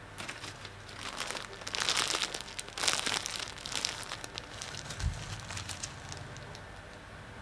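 A thin plastic bag of ground coffee crinkling as it is handled and squeezed, loudest about two to three seconds in, followed by a low rumble of handling.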